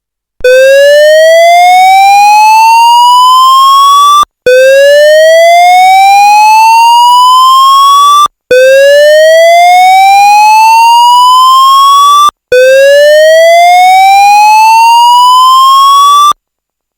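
Pertronic F16 fire alarm's horns sounding its evacuation tone: four slow rising whoops, each sweeping upward for about four seconds and cutting off sharply, with a brief gap before the next. It is an older pre-2003 tone, unlike the later standard evacuation tone.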